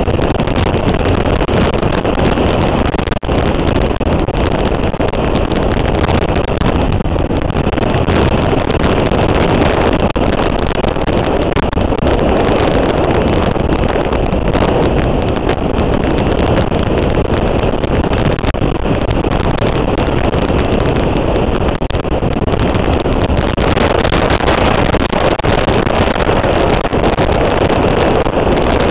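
Motorcycle underway on the open road: wind rushing over the microphone mixed with the engine's steady running, with no gear changes or sudden events.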